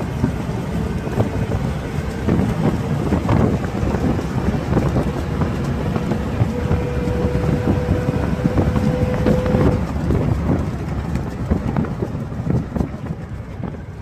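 Mahindra Major jeep driving at speed, its engine and road noise running under wind buffeting the microphone. A faint steady tone holds from about two seconds in until near ten seconds, and the sound eases off slightly near the end.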